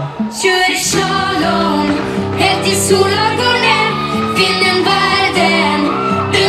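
Pop song played loud over a PA, a female voice singing over a steady beat and bass; the fuller arrangement with drum hits comes in a moment in.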